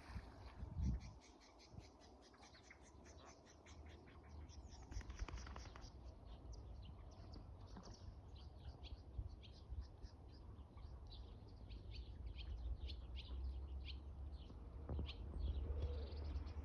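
Birds chirping in long runs of short, high notes, several a second, over a steady low rumble.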